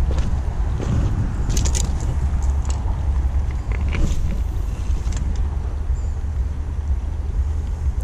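Wind rumbling steadily on the microphone beside a flowing river, with a few sharp clicks and scrapes from a spinning rod and reel being handled around two and four seconds in.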